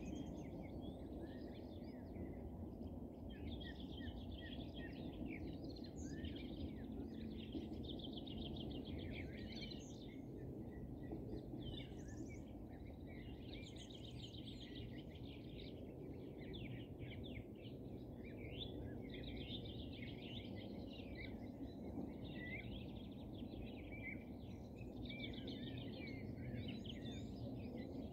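Several songbirds singing at once, a continuous chorus of chirps and quick repeated trills, over a steady low rumble of background noise.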